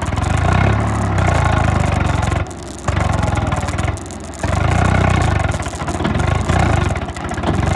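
Swaraj 855 FE tractor's three-cylinder diesel engine revving hard under load in three long bursts, easing off briefly about two and a half and four seconds in. The tractor is straining to pull a stuck, loaded trailer out of soft ground.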